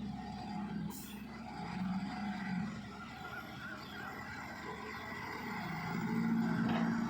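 Diesel engine of heavy loading machinery running, its hum swelling louder near the end.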